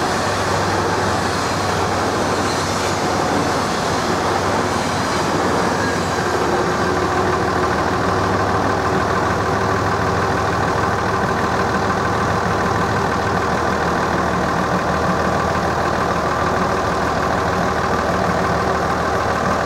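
NMBS/SNCB double-deck electric intercity train running past over a level crossing; its rail noise is strongest in the first few seconds and then eases. A steady noise carries on after the train has gone.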